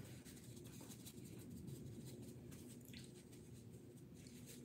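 Near silence: a faint steady low room hum, with a few faint soft rustles of a tissue dabbed against the face.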